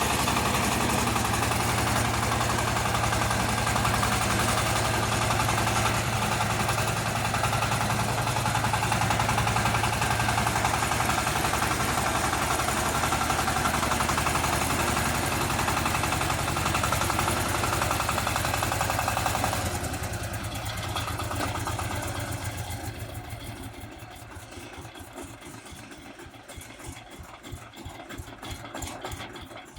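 35 HP mini wheel tractor's engine running steadily, then falling away about two-thirds of the way through and carrying on much quieter with an even beat.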